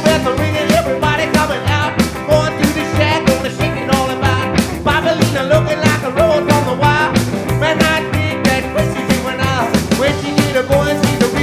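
A 1950s-style rock and roll band playing an instrumental stretch: electric guitar lead over upright bass and a steady, driving drum beat.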